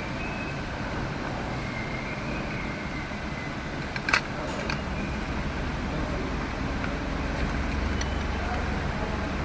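Steady low vehicle rumble, with one sharp click about four seconds in.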